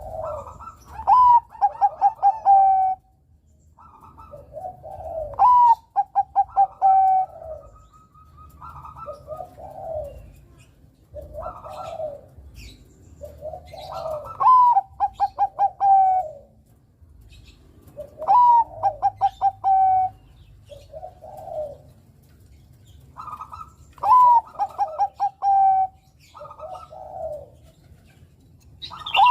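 Zebra dove (Bangkok-type perkutut) cooing. It repeats its song phrase every few seconds: a low, sweeping coo followed by a rapid run of short, clipped higher notes, with softer single coos in between.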